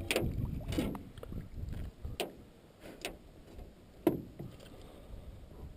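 A netted fish splashing and thrashing as the landing net is lifted out of the water, with a string of short splashes and knocks. The sharpest knock comes about four seconds in, as the net comes over the side of the boat.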